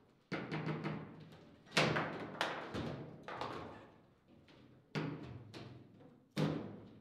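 Foosball table in play: a string of sharp knocks and thuds from the ball being struck by the players on the rods and the rods banging against the table. The loudest knock comes about two seconds in, with more about three and five seconds in and another near the end.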